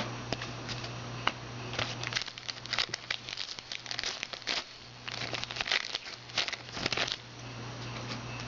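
Plastic trading-card pack wrapper crinkling and tearing as the pack is opened, a run of irregular crackles from about two to seven seconds in.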